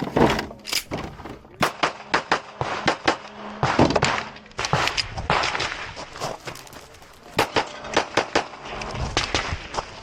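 Strings of rapid pistol shots from a Glock 26 subcompact 9 mm, fired in quick bursts with short pauses between them as a stage is shot after the start signal.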